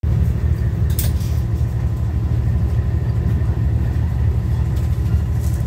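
Steady low rumble of a moving passenger train heard from inside the carriage, with one short click about a second in.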